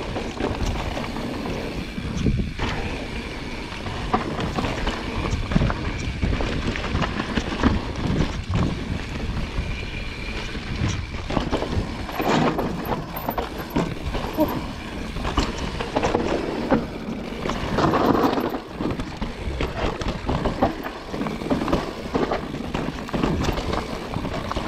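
Mountain bike descending a rocky, rooty dirt singletrack: continuous tyre rumble on the dirt, with frequent clattering knocks from the bike as it rolls over rocks and roots.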